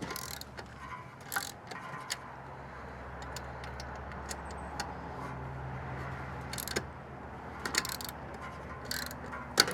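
Hand tools and metal furnace parts clinking and tapping in scattered knocks, with a sharper knock near the end, over a steady low hum.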